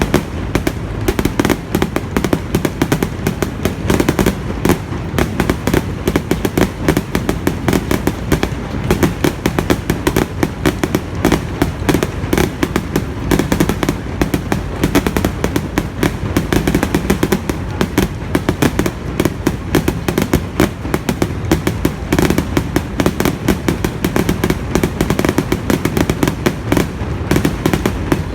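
Aerial fireworks exploding in a dense, continuous barrage: many rapid bangs and crackles overlapping, with booming low thuds beneath.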